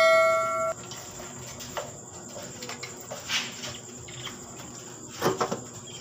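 A bell-like notification chime from the subscribe-button animation rings out and cuts off under a second in. After it come only faint handling noises, soft rustles and light ticks.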